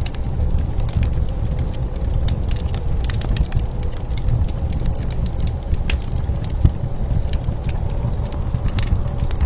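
Wood fire crackling, with irregular sharp pops and snaps, over a steady low rumble of blizzard wind.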